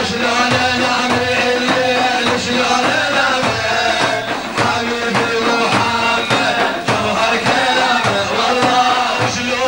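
Arabic Sufi devotional song: a voice singing long, ornamented notes over a steady, regular drum beat.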